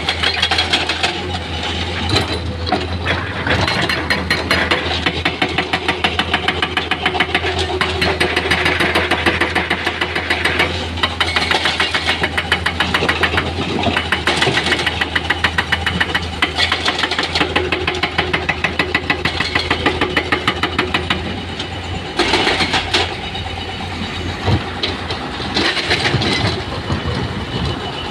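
Heavy construction machinery with diesel engines, such as excavators and dump trucks, running under load, with a fast even pounding of about four beats a second that grows stronger in the middle and eases off toward the end.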